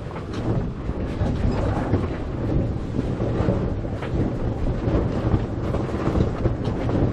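Wind buffeting the microphone on a sailboat under way, a steady rumbling rush with uneven gusts.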